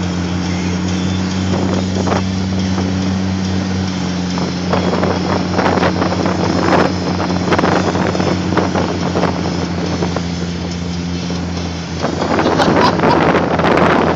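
Car engine running with a steady low drone while driving on beach sand, with wind buffeting the microphone in gusts that grow heavier in the last couple of seconds.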